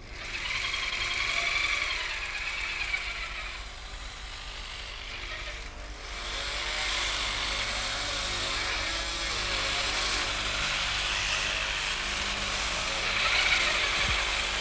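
Electric drive motors in the joints of the Syntelmann telemanipulator arm whirring as the arm follows the operator's movements. The whine rises and falls in pitch as the joints start, stop and change speed, with a brief lull about six seconds in.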